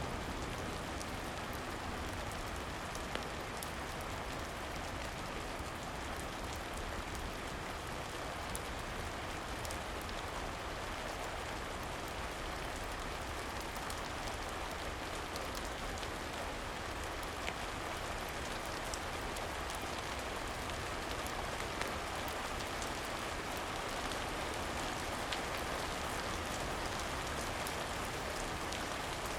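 Steady gentle rain, with scattered small crackles and pops from a wood fire in a fireplace.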